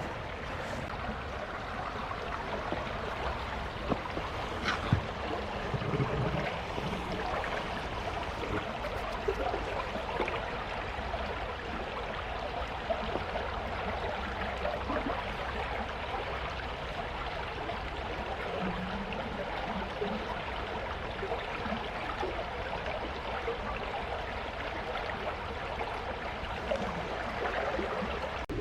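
Small forest stream running over stones: a steady rush of flowing water, with a couple of faint knocks about four to five seconds in.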